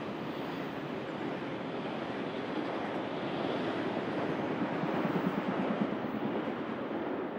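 Diesel locomotive engine running as the locomotive moves, a steady rumbling noise that grows a little louder and more pulsing about five seconds in.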